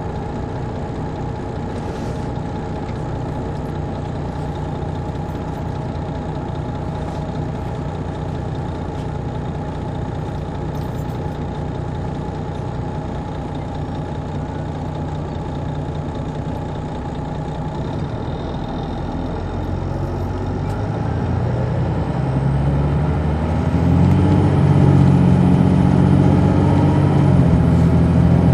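A Detroit Diesel Series 60 engine in an MCI D4000 coach, heard from the rear seats, running steadily. About twenty seconds in it revs up, rising in pitch and getting louder, with a faint high whine climbing along with it, as the bus pulls away under power.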